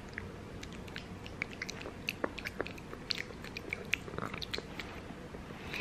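A toddler chewing blueberries close to the microphone: soft, irregular mouth clicks and smacks.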